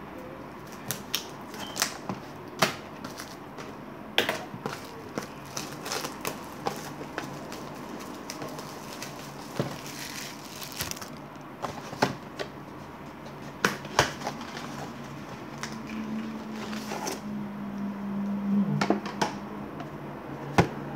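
Plastic shrink-wrap on a trading-card box being cut and peeled off, then crumpled: an irregular run of sharp crackles and crinkles with a few light knocks of handling.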